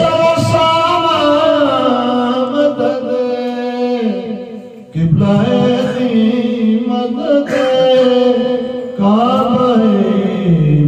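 A man singing an Urdu naat solo in long, drawn-out, ornamented phrases, with short breaths a little before five seconds in and about nine seconds in.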